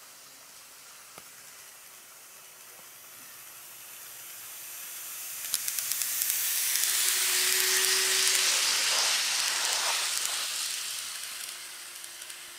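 N-gauge model train, a KATO EF81 electric locomotive hauling an 813 series electric multiple-unit set, running along the track: the hiss of its wheels and motor swells as it passes close by, then fades. A run of light clicks comes as it draws near, and a few more near the end.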